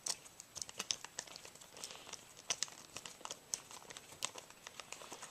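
A screwdriver driving a screw into the plastic shell of a Dye Rotor paintball loader: many small, irregular clicks and scrapes, several a second.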